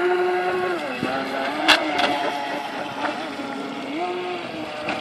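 Electric RC model speed boat's brushless outrunner motor whining as the boat runs on the water, its pitch dropping about a second in, then rising and falling again near the end as the speed changes through the turns. Two sharp clicks come about a second and a half in.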